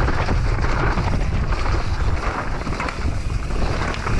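Mountain bike descending a rough dirt trail at speed: wind buffeting the action camera's microphone over a steady low rumble of tyres on dirt, with frequent rattles and knocks from the bike over the bumps.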